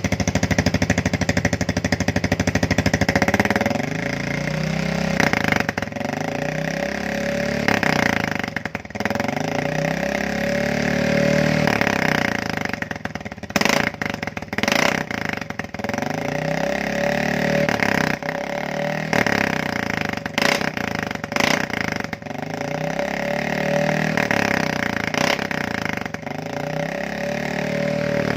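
Yamaha Fino 125 scooter's single-cylinder engine running through a gutted, drag-style aftermarket muffler, loud. The throttle is blipped over and over, the revs climbing and dropping back to idle every two to three seconds.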